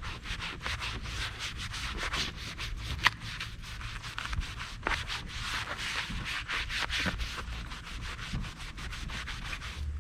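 A magic eraser (melamine foam sponge) scrubbed hard back and forth over the boat's nose, rubbing off black scuff marks in quick repeated strokes. A single sharp click about three seconds in.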